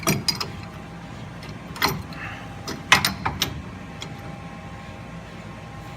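Sharp metal clinks and knocks, about five in the first three and a half seconds, as a pipe wrench works the threaded cap off an EMF rebuildable ball joint, over a faint steady hum.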